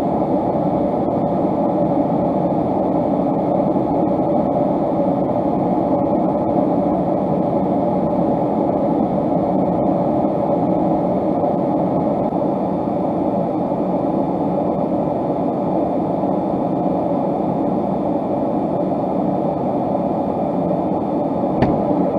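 Steady rumble and hiss inside a pickup truck's cab while driving, with a short click near the end.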